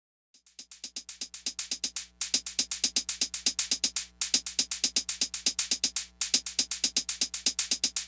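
Electronic background music: fast, even drum-machine ticks over a low steady bass note. It fades in about half a second in and breaks off briefly every two seconds or so.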